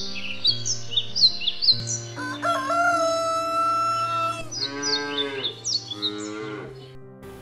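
Farm ambience: small birds chirping in quick repeated falling notes, a rooster crowing one long held call about two seconds in, then a shorter farm-animal call, over soft background music.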